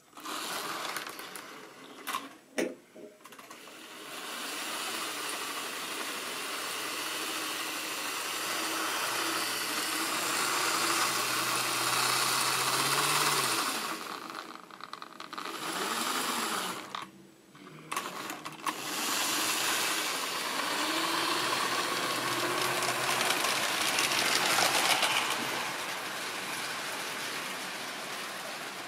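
Model railway locomotive running on track: the small electric motor whirs and the wheels and wagons rattle over the rails, starting abruptly with a few sharp clicks early on. It swells as the train passes close, dips twice about halfway, then runs on.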